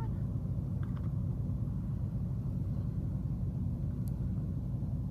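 Steady low rumble of wind buffeting the microphone, with a faint click about four seconds in.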